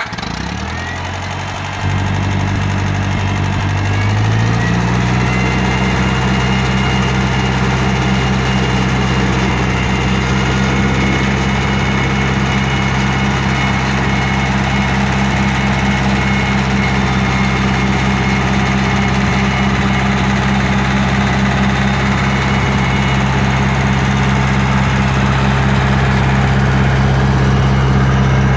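Ferguson tractor engine running. Its speed steps up twice in the first five seconds or so, then it runs steadily at a fast idle.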